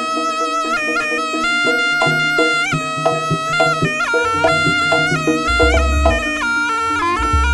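Jaranan music: a slompret, the Javanese shawm, plays a nasal, ornamented melody with slides between notes over drums and percussion. Deep low drum or gong beats come in about halfway through.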